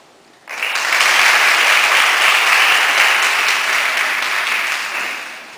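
Audience applause breaking out suddenly about half a second in, holding steady, then fading near the end.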